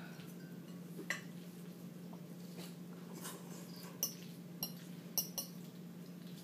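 Metal fork clinking and scraping against a bowl while eating, several sharp separate clinks, the loudest about five seconds in, over a steady low hum.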